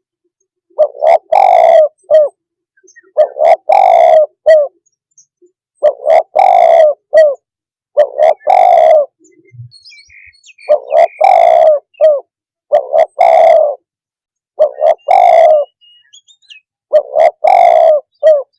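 Spotted dove (tekukur) cooing its loud, repeated phrase of a few short and long notes, about eight phrases with short pauses between.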